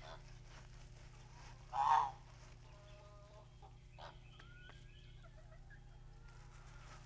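A single short, loud goose-like honk about two seconds in, followed by a few fainter honking calls and a light click near the middle.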